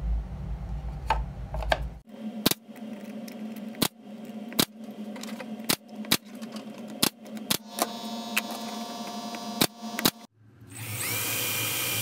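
A brad nailer fires about eight times at uneven intervals, driving brads through a thin luan plywood backing into a wooden frame. About ten seconds in, a power drill starts and runs steadily, boring a hole through the frame. The drill is the loudest sound.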